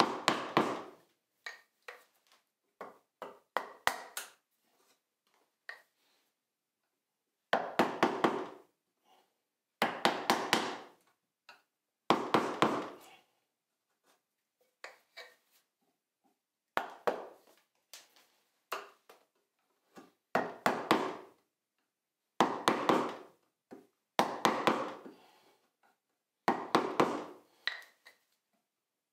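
Wooden mallet striking a bench chisel, chopping waste from between dovetail pins. The blows come in quick runs of several strikes each, about nine loud runs, with lighter scattered taps between them.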